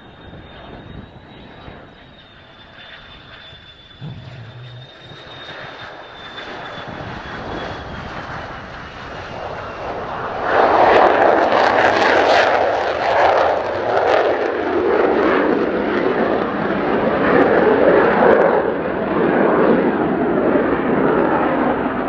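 Mitsubishi F-2B fighter's single F110 turbofan on a touch-and-go. A high whine falls slowly in pitch as the jet approaches. About ten seconds in, it gives way suddenly to a loud jet roar with crackle as the jet runs along the runway and climbs away.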